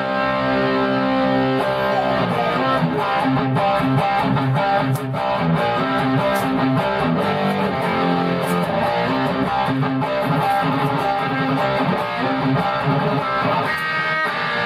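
Purple Vintage Metal Axxe electric guitar played through an amplifier: a chord rings out for about the first second and a half, then quick runs of picked notes and riffs.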